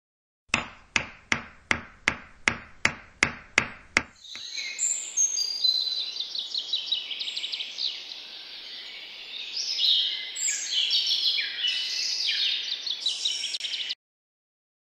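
About ten sharp, evenly spaced knocks, roughly three a second, then many birds chirping and singing over a steady background hiss, which cuts off abruptly near the end.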